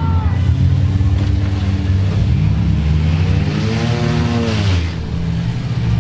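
Several demolition derby car engines running together in a steady drone, with one engine revving up and dropping back down about three seconds in.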